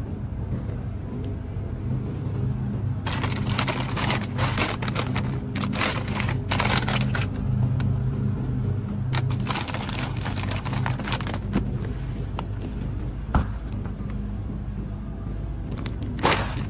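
Repeated bursts of rustling and rattling handling noise over a steady low hum, with a short crinkle of a plastic frozen-food bag near the end.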